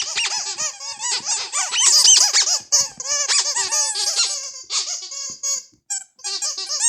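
Ledraplastic rubber squeaky toys squeezed over and over: a fast run of short squeaks that rise and fall in pitch, growing sparser and more spaced out near the end.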